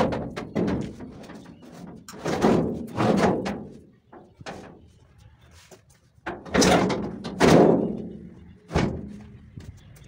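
The Scania L75's steel sheet-metal hood being set onto the truck by hand: it bangs, clanks and scrapes in several irregular bursts. The loudest come about two to three and a half seconds in and again from about six and a half to eight seconds, with a sharp knock near the end.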